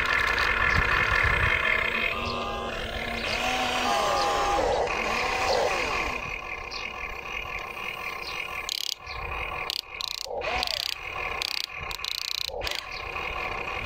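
Electric motors of a radio-controlled excavator whining, stopping and starting with rising and falling pitch as the boom swings and the arm lowers. In the second half the whine gives way to scraping, crackling clicks as the bucket digs into dry soil and stones.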